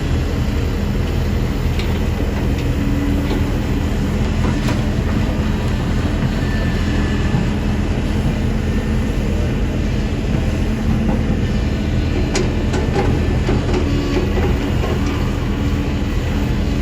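Kobelco hydraulic excavator's diesel engine running steadily with a deep hum, with a few short metallic clanks about five seconds in and again near twelve seconds.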